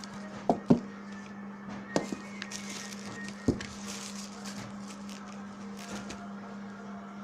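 Handling noises from unboxing a phone: four or five sharp knocks and clicks in the first half, with light rustling, over a steady low hum.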